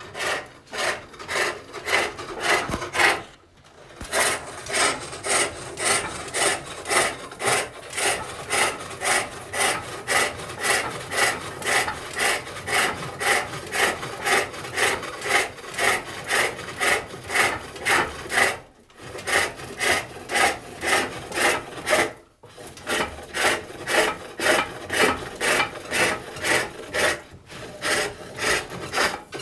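Hook tool cutting the core of a wooden lidded box turning on a foot-powered pole lathe: a rhythmic rasping cut repeating a few times a second with the lathe's back-and-forth strokes, broken by a few brief pauses.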